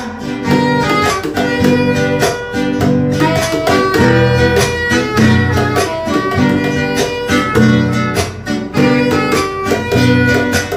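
Instrumental passage of a song, led by plucked guitar over a steady, regular beat, with no singing.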